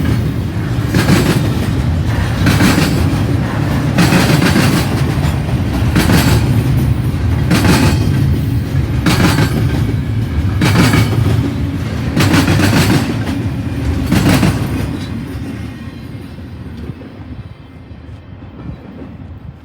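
Freight cars of a CN intermodal train rolling past, a steady rumble with the wheels clacking over a rail joint about every second and a half. The sound dies away over the last few seconds.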